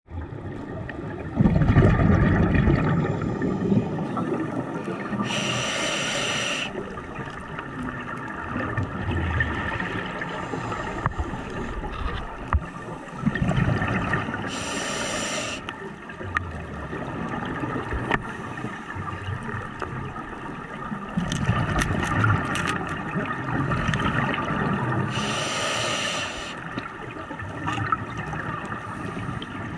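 Scuba diver breathing through a regulator underwater: three sharp hissing inhalations roughly ten seconds apart, with the bubbling of exhaled air between them.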